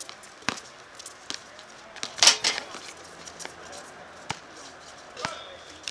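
Pickup basketball game: irregular sharp thumps of a ball bouncing and players' feet on the court, with players' voices. A louder burst comes about two seconds in.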